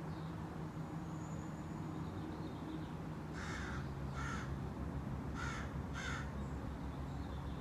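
A crow cawing four times, short harsh calls starting about three seconds in, over a steady low hum.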